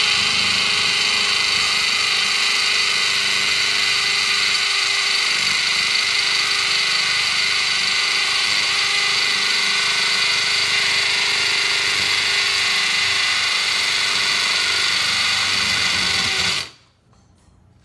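Hammer drill running steadily at high speed, boring a pilot hole through the house wall, and stopping sharply near the end.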